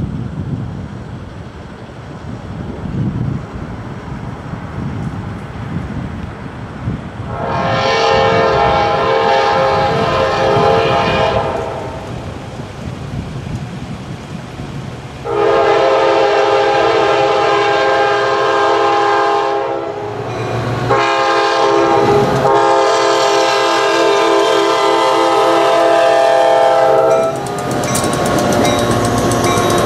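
A commuter train's diesel locomotive air horn sounds the grade-crossing signal: two long blasts, a short one, then a long one, each a chord of several tones. Before the horn there is a low wind rumble. About two seconds from the end, the locomotive reaches the crossing and its wheels clatter over the rails.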